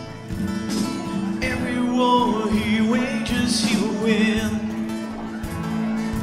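Live worship band playing a song: acoustic and electric guitars under sung vocals.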